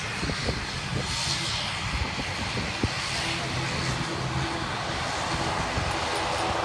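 Mandarin Airlines ATR 72's twin turboprop engines running steadily during its takeoff. A higher steady tone joins about three seconds in.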